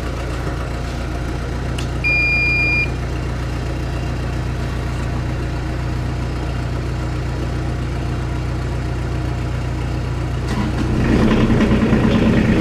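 Kubota U35 mini excavator being started: a short electronic beep from the dash about two seconds in as the key is switched on, a wait while the glow plugs preheat the diesel, then near the end the engine cranks and catches and runs louder. A steady low engine idle hums underneath throughout.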